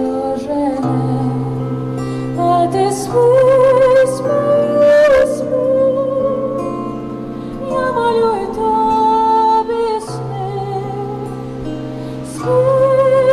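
A woman singing a slow Ukrainian lullaby with vibrato, accompanied by a plucked bandura and a held low bass note. The singing swells louder about three seconds in and again near the end.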